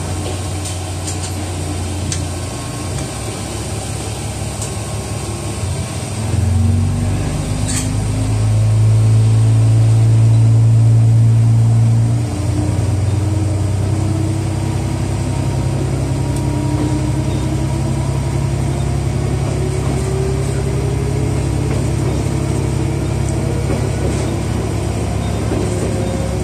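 WT3300 diesel railcar's engine pulling away from a stop. A low steady hum gives way about six seconds in to the engine throttling up and running louder for several seconds. It drops back about twelve seconds in, then a whine climbs slowly in pitch as the railcar gathers speed.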